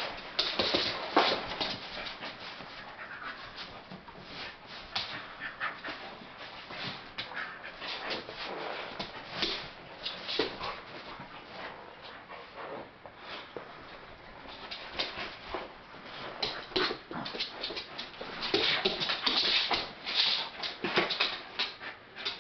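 A pit bull play-wrestling on a dog bed, with quick, irregular whimpers and panting that are busiest and loudest near the end.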